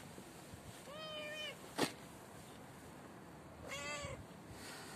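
Black-and-white tuxedo domestic cat meowing twice, two short arched meows about a second in and again near four seconds. A sharp click comes just after the first meow.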